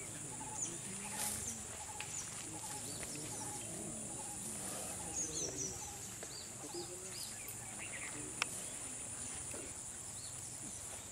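Outdoor wildlife ambience: a steady high insect drone with many short bird chirps over it, and a single sharp click about eight seconds in.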